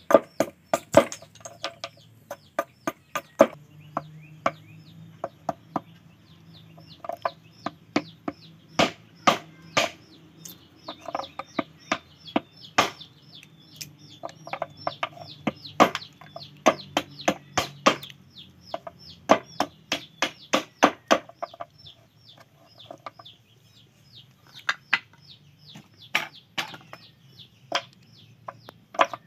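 Heavy golok blade chopping and paring a small block of wood on a wooden stool: sharp, irregular knocks, often several a second in runs, with short pauses between.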